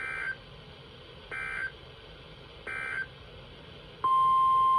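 Three short bursts of warbling SAME data tones, the End of Message code closing a NOAA Weather Radio alert, about 1.3 seconds apart. About four seconds in, the loud, steady 1050 Hz Weather Radio warning alarm tone starts and holds.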